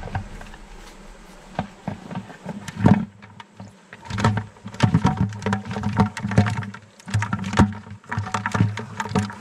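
Irregular clicks, scrapes and knocks inside a plastic bucket holding a Japanese mitten crab: the crab's legs scrabbling on the plastic and a hand moving in the bucket. The sharpest knock comes about three seconds in, and a low hum comes and goes underneath.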